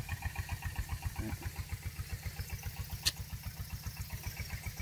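A small engine running steadily, with an even low thudding of about seven beats a second. A single sharp click comes about three seconds in.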